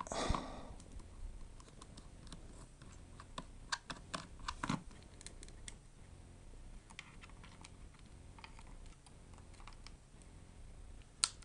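Irregular light clicks and taps of small tools and parts being handled inside a MacBook unibody laptop during disassembly, with a cluster of clicks around four to five seconds in and one sharp click near the end.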